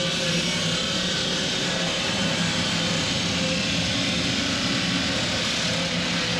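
Stone-cutting machinery running steadily: a constant low hum under a broad hiss.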